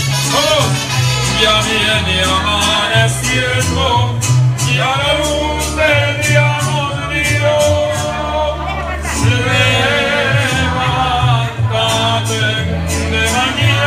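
A Latin American-style song with a sung vocal over a bass line that steps back and forth between two low notes.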